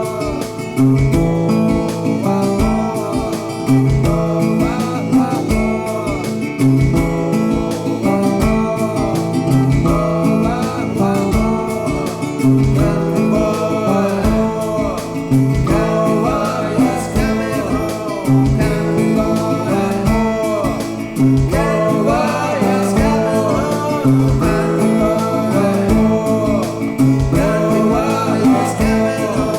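Background music: a country-style song with acoustic guitar and singing over a steady beat.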